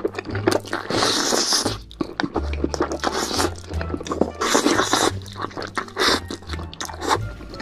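Close-miked mukbang eating sounds: noodles slurped and chewed with wet crunching and clicking, over background music with a steady bass.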